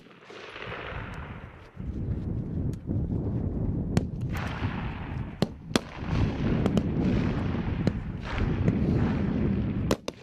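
Rifle shots on a firing range: about ten sharp cracks at irregular intervals, over a steady low rumbling noise.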